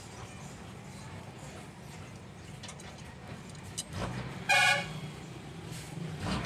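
A vehicle horn gives one short toot about four and a half seconds in, over a steady low hum.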